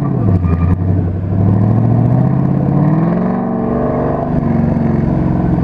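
Car engine accelerating hard through an autocross course: the pitch dips briefly about half a second in, then climbs steadily for a few seconds and holds high.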